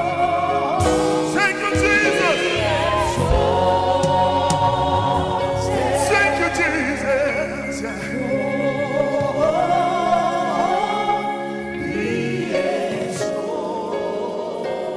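Live gospel music: a male lead singer sings with backing singers and a band of drums and keyboards.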